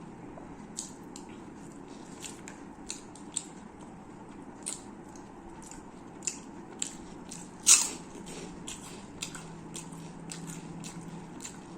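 Close-miked eating: a person chewing, with frequent small wet mouth clicks and one loud crunch about three-quarters of a second short of eight seconds in.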